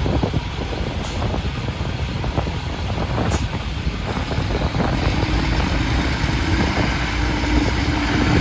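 Military 6x6 MTV truck's diesel engine running under load with a steady low rumble, wind buffeting the microphone; a steady hum joins about five seconds in.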